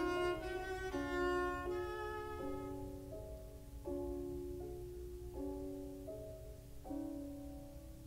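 Slow background music on a bowed string instrument, playing held notes that change about once a second and grow softer in the second half.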